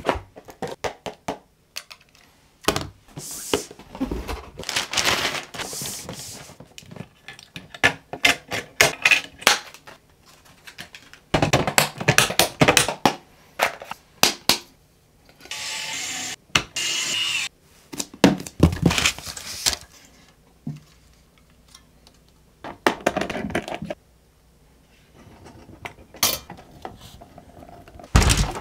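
PC parts being unboxed and handled by hand on a desk. A cardboard CPU box is opened and parts and packaging are picked up and set down, giving scattered taps, clicks and light knocks, with a few stretches of rustling from packaging and foam.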